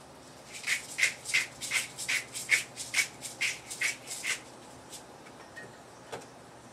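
Hand-twisted pepper mill grinding peppercorns: about ten short grinding strokes at roughly three a second, stopping after about four and a half seconds.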